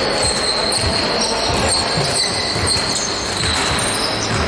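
Basketball being dribbled on a hard court, irregular low thuds of the ball and players' feet over the steady echoing noise of a sports hall.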